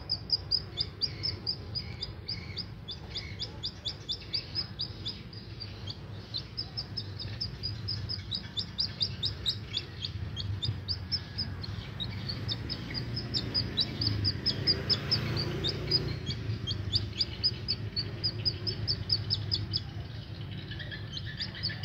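A domestic chick peeping continuously: a quick run of short, high peeps that slide downward, several a second, over a low steady background hum.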